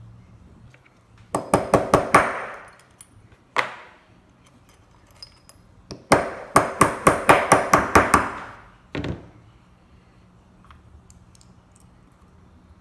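Sharp metal-on-metal tapping from pliers struck against a key blade held in a steel pin-pushing jig: a quick run of about six taps, a single tap, then a longer run of about eleven taps at roughly five a second, and one last tap.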